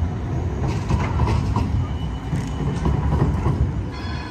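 Articulated city tram rolling across a street junction: a steady low rumble of the running gear, with clicks as the wheels pass over points and rail joints. A faint high wheel squeal comes in about halfway through.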